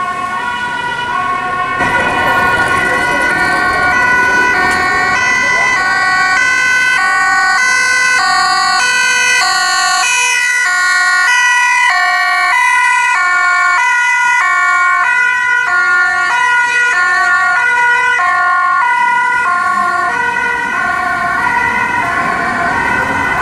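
Two-tone emergency sirens of an ambulance and a mobile medical team Audi Q7 on an emergency run, switching between a high and a low note about twice a second, with traffic noise beneath.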